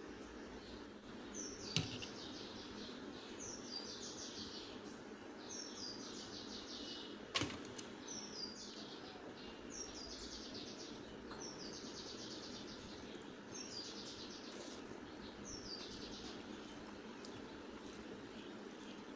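A bird calling over and over, a short falling trill about once a second, over a steady low background noise. Two sharp clicks, about two and seven seconds in, are the loudest sounds.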